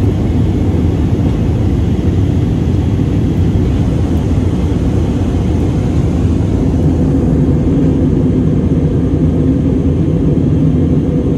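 Steady low rumble of jet engines and rushing air inside the cabin of an Airbus A321neo in flight.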